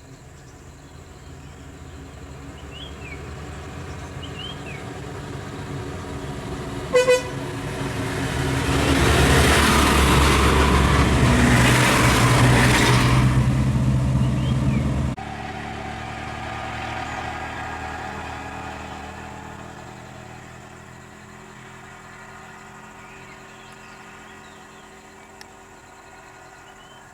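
A road vehicle's engine hum grows louder, with two very short horn toots about seven seconds in. Loud engine and road noise follows and cuts off suddenly about halfway through, leaving a fainter engine hum that fades away.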